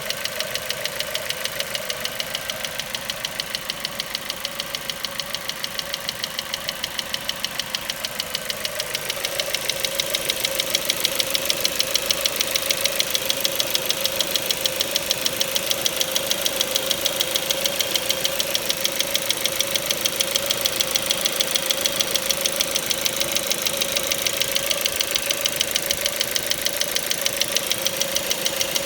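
Ford Mondeo 4's 2.0 Duratec HE four-cylinder engine running with a rapid, even knock that keeps time with the engine, louder from about nine seconds in. The owner has ruled out the valves and the swirl flaps and suspects the petrol injectors.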